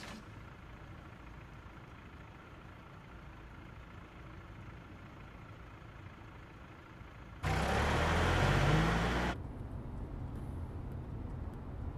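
Low steady rumble of a moving car heard from inside its cabin. About seven and a half seconds in, a loud rush of engine and road noise with a rising engine note lasts about two seconds and cuts off abruptly.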